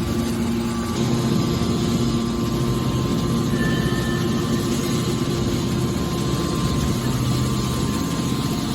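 Hydraulic metal scrap baler running: a steady machine hum with a few constant low tones and no breaks.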